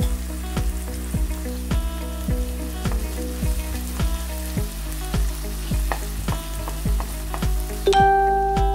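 Sliced onions sizzling in oil in a frying pan as they are stirred with a wooden spoon. Background music with a steady beat plays under it, and the sizzling cuts off near the end.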